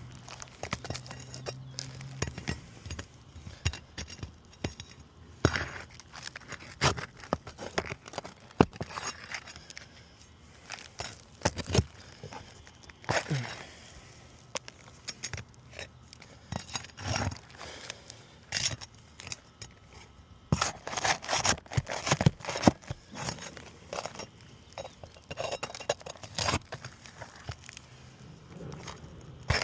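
Asphalt shingles being pried up and their nails pulled: irregular scraping and crackling with scattered sharp clicks and knocks. The crackle is the brittle, worn shingles shedding granules as they are worked loose.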